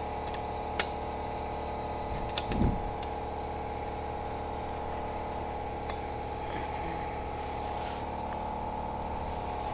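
A steady mechanical hum, with a few sharp metallic clicks in the first three seconds as the air cannon's rear breech door is closed and latched.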